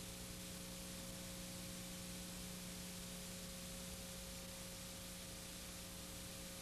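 Faint, steady hiss with a low electrical hum from a blank stretch of old videotape.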